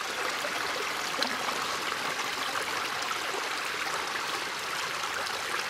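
Pond water sloshing and trickling steadily around arms and waders as gloved hands work a submerged beaver trap and its cable, with a few small splashes.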